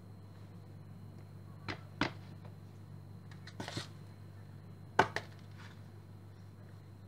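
Sticky pizza dough being folded in an oiled bowl: a handful of short slaps and knocks, the loudest about five seconds in, over a steady low hum.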